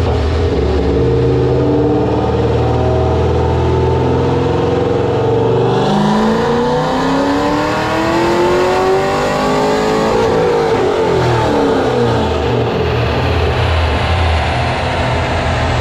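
C6 Corvette V8 with long-tube headers running in gear on a chassis dyno: steady for about six seconds, then a full-throttle dyno pull with the revs climbing for about four seconds before falling away.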